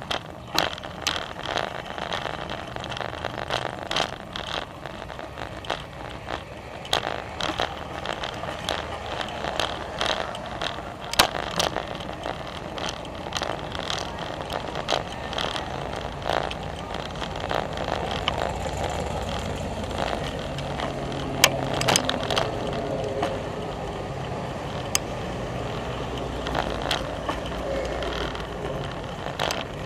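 Bicycle rolling over brick pavers and pavement, with irregular rattles, clicks and knocks from the bike and its camera mount over steady tyre and wind noise. A low steady hum joins in about halfway through.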